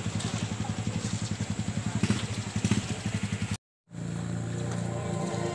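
Motorcycle engine idling with a fast, even putter. It breaks off abruptly about three and a half seconds in, and a steadier low hum follows.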